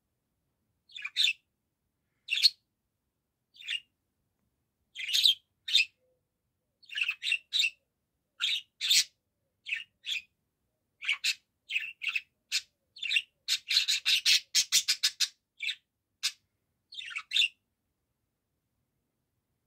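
Budgerigar chirping and warbling in short separate calls, about one a second. About two-thirds of the way through there is a quick run of rapid chirps.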